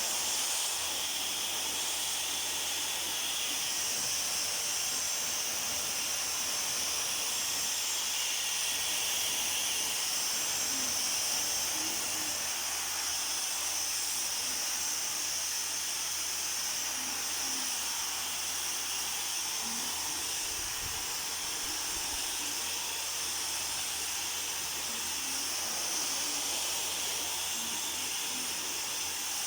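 Dyson Supersonic hair dryer blowing steadily on hair: a continuous high-pitched rushing hiss of air that holds an even level throughout.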